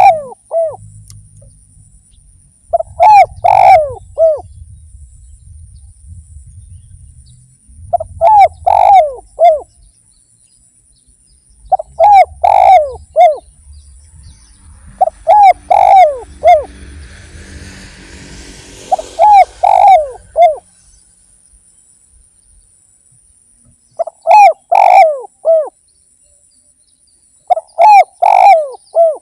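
Spotted dove (derkuku) cooing loudly: eight short phrases of a few falling notes each, repeated about every four seconds, with a thin, steady high whine faintly behind.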